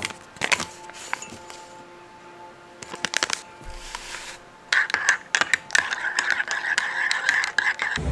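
Sharp clicks and light clinks against a ceramic mug as an instant coffee stick is torn open and emptied into it, busiest in the second half, over background music.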